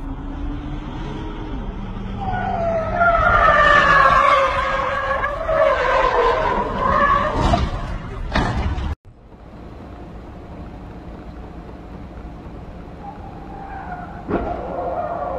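Car tyres squealing in a long, wavering skid, then two crashes about a second apart. After a sudden cut, quieter steady road noise from inside a car, with a sudden thump near the end.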